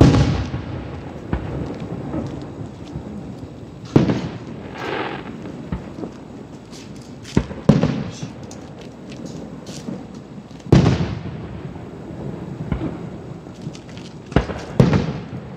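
Aerial firework shells bursting about a quarter mile away: seven sharp booms, each trailing into a rolling rumble. The first is the loudest and has the longest rumble, two come in quick succession about halfway through and two more near the end, with faint crackling between some of them.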